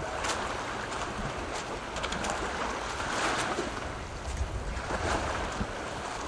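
Sea waves washing onto a beach: a steady rushing with a few louder swells, and some wind rumbling on the microphone.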